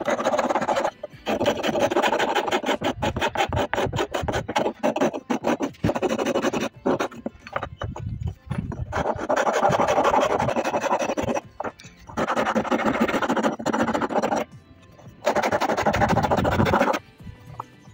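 Flat metal hand file rasping across a wooden block in quick back-and-forth strokes, in several bouts with short pauses between them.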